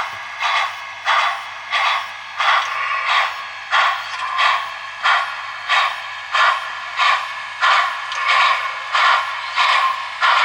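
Recorded steam-exhaust chuffs of a Union Pacific Big Boy played by the DCS sound system of an HO-scale MTH model locomotive. The chuffs come at a steady beat of about one and a half a second, over a faint steady hum.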